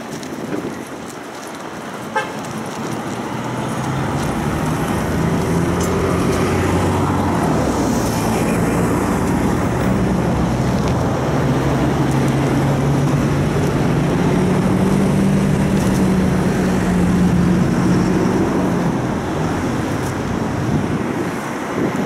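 A large engine running with a low, steady hum. It grows louder over the first few seconds, holds for about fifteen seconds, and eases off near the end.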